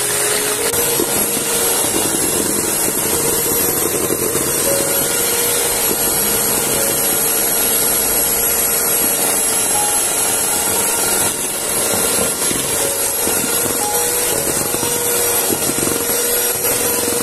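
Electric mixer motor running steadily with a constant whine, beating a batter or cream in a bowl, briefly dipping about eleven seconds in.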